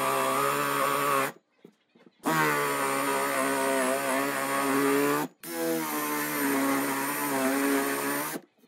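Power drill boring into a wooden board with a Forstner bit, its motor running with a steady whine in three bursts: it stops about a second in, starts again about a second later, and pauses briefly again around five seconds in.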